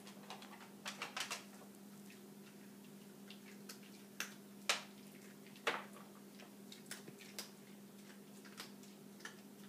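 A small dog eating dry dog food: irregular sharp crunches and clicks, a quick cluster about a second in, then single ones every second or so, the loudest near the middle. A steady low hum runs underneath.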